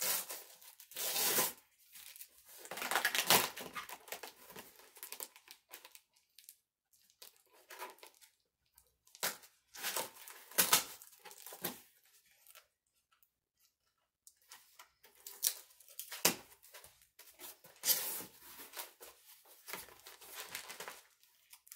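A cardboard shipping box being torn open by hand: several bursts of tearing and rustling with short quiet pauses between them.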